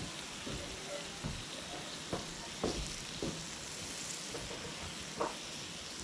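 Meat sizzling steadily as it cooks, with a handful of light clicks and knocks from utensils, the loudest about five seconds in.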